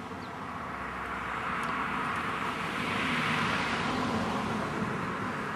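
A vehicle passing by: a smooth rush of noise that swells to its loudest about three to four seconds in and then fades.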